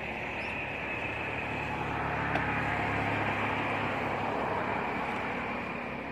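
A motor vehicle passing by, its noise swelling to a peak about three seconds in and then fading, with a short click in the middle.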